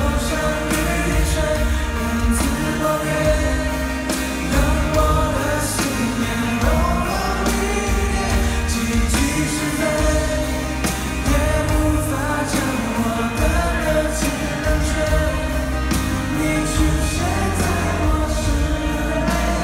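Live Mandopop concert music: singing over a full band with heavy bass and a steady beat, heard through a phone from the arena seats.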